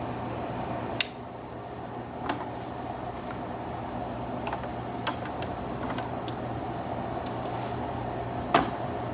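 Plastic body of a Black+Decker air humidifier being handled, giving a few sharp clicks and knocks, the loudest about a second in and near the end, over a steady low hum.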